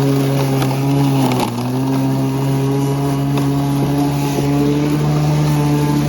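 Sunjoe 28-volt cordless electric lawn mower running in its high-speed mode while mowing, a steady motor and blade hum. Its pitch dips briefly about a second and a half in, then recovers.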